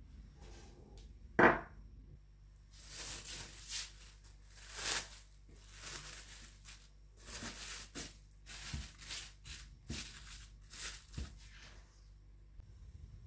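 A sharp knock about a second in, then clear plastic cling film crinkling and rustling in irregular bursts as it is spread over a plate and pressed down around it.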